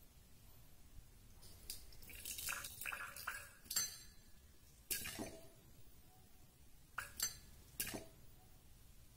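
Coconut jelly tipped into a tall drinking glass with a soft, wet, sliding sound, then ice cubes dropped in, clinking sharply against the glass about five times.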